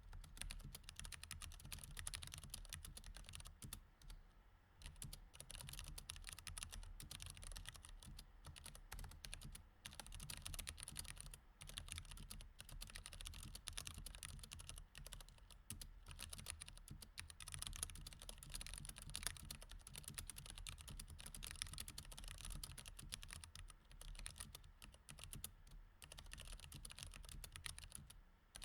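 Mechanical keyboard with Cherry MX Red switches being typed on steadily, a quiet, rapid stream of key strokes with brief pauses. A faint low hum lies beneath.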